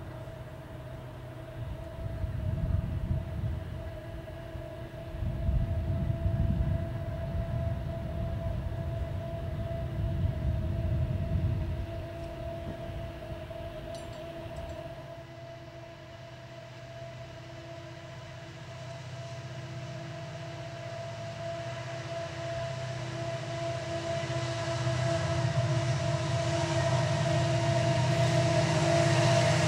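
Norfolk Southern SD70M-2 diesel locomotives working upgrade at the head of a container train, a low engine rumble with a steady whine over it. The rumble swells and fades in the first half, then builds steadily louder over the last several seconds as the train approaches.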